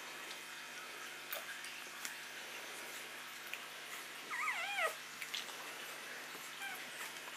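One-week-old Airedale Terrier puppy giving one short squeal that wavers up and down in pitch, about halfway through. Faint clicks and smacks from the litter suckling come now and then.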